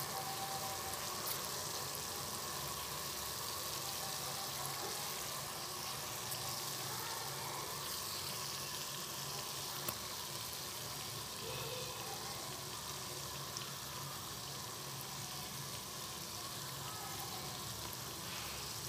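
Ring doughnuts frying in a pan of oil over low heat, with a steady sizzle.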